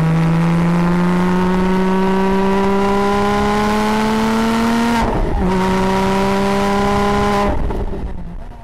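Subaru WRX STI engine accelerating hard, its pitch climbing steadily for about five seconds. A short break follows as it shifts up, then it pulls again at a lower pitch and fades out near the end.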